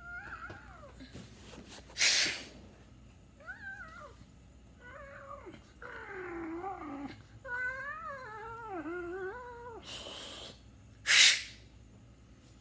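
A series of cat-like meows, several short ones and then two longer, wavering calls rising and falling in pitch. Two short, loud hisses break in, one about two seconds in and one near the end.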